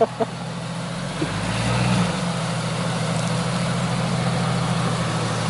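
Lifted Jeep Cherokee XJ's engine running at low revs as it crawls slowly over rough ground, picking up briefly about two seconds in and then holding steady.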